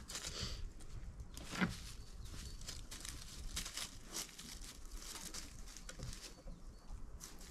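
Light rustling and scuffing in loose wood-chip mulch, with scattered soft clicks. A short falling cry comes about a second and a half in.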